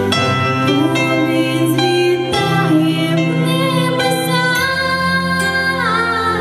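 A girl singing a slow, tender song into a handheld microphone over instrumental accompaniment, her voice gliding down between notes near the end.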